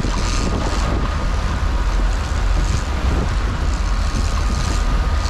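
Boat engine running steadily with wind buffeting the microphone and the rush of the wake behind the stern, with a faint steady high whine over it.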